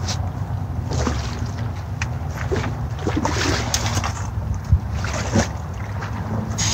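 Lake water splashing and sloshing as a landing net holding a large koi is hauled out and a wader-clad angler steps up out of the shallows, over a steady low rumble of wind on the microphone. A sharp knock about four and a half seconds in.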